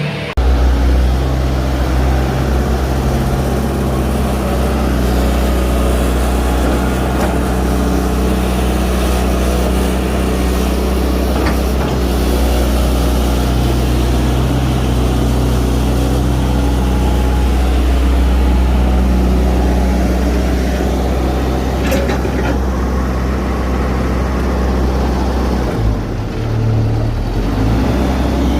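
Hitachi ZX110MF excavator's diesel engine running steadily with a deep, even hum.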